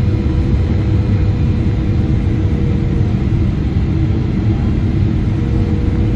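Steady in-flight cabin noise of a Boeing 777-300ER: the low rumble of its GE90 engines and the airflow, heard from inside the cabin. A faint steady hum drops out for a couple of seconds in the middle.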